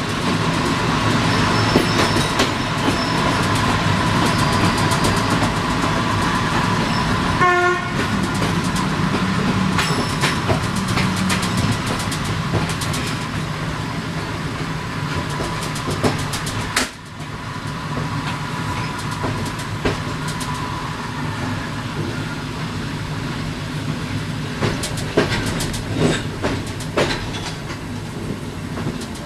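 Passenger train rolling through station tracks, its wheels clacking over rail joints and switches in an uneven rhythm over a steady running rumble. A short horn blast sounds about seven and a half seconds in.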